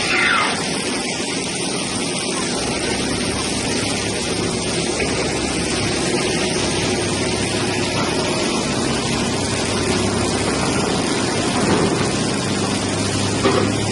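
Steady machine running noise with a low hum from a CNC four-roll plate rolling machine at work, its hydraulic drive and rolls turning. A brief rising-then-falling squeal sounds right at the start.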